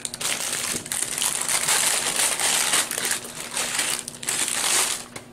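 Paper takeout bag crinkling and rustling as it is handled, in irregular bursts that stop near the end.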